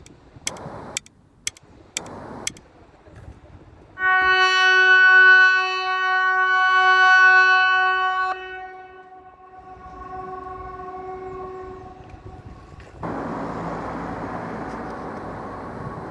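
A few sharp ticks about twice a second, then a SiRcom ESP 750 electronic civil-defence siren (Hesa Fredrik) sounding one steady tone with strong overtones. It is loud for about four seconds, drops off sharply, and fades away over the next few seconds. A steady rushing noise follows near the end.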